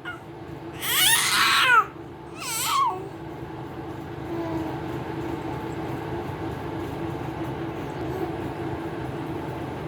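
Baby vocalizing: two loud, high-pitched cries in the first three seconds, the second one short. After that, a steady low hum.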